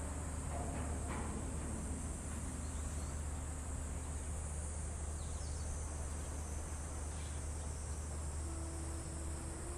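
Steady, high-pitched drone of insects shrilling, over a low steady rumble.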